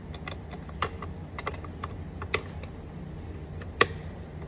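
A run of sharp, irregular plastic clicks and taps as a plastic trim cover is handled and fitted onto the truck's door, the loudest snap nearly four seconds in, over a low steady hum.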